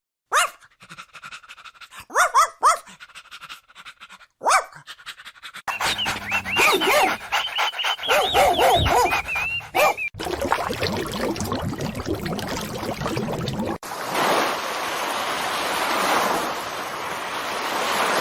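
Dogs whining and yipping in short rising and falling calls, then a dense stretch of many high whimpering calls, then steady panting.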